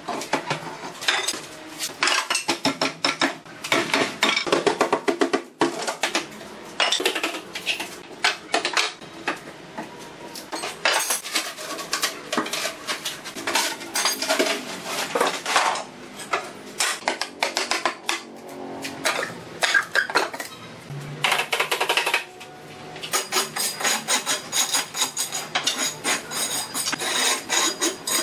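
Hammer and steel bar knocking and clinking against wooden formwork boards and brick as the boards are pried out from under a cast concrete countertop. The boards clatter as they are pulled free, making a dense run of sharp metallic taps and clacks. Near the end the sound changes to a steadier scraping of a metal trowel on concrete.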